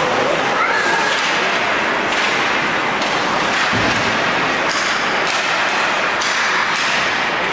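Ice hockey play on an indoor rink: a steady wash of skates on ice and arena noise, with sharp hissing skate scrapes and stick-and-puck taps. A dull thump comes a little under four seconds in.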